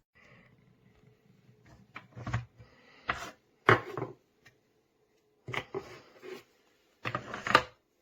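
Objects being handled: irregular knocks, clunks and short rustles, several of them sharp, spaced unevenly.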